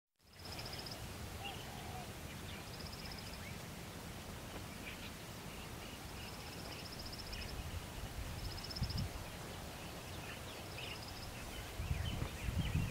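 Outdoor natural ambience: short, high-pitched, fast-pulsed trills repeating every couple of seconds, with scattered faint chirps, over a low rumble that gets louder near the end.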